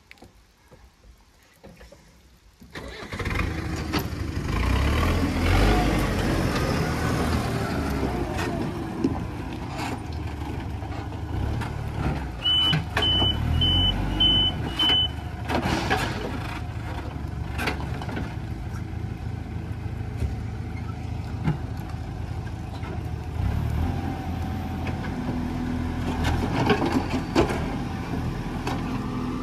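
Engine of an earth-moving machine running hard while it digs and presses the ground. It comes up loud about three seconds in, and a back-up alarm gives five short high beeps about halfway through.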